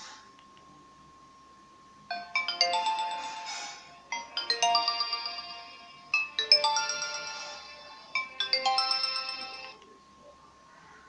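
Nokia 2600 mobile phone ringtone: a short electronic melody that begins about two seconds in and repeats four times, each phrase lasting about two seconds with brief gaps between.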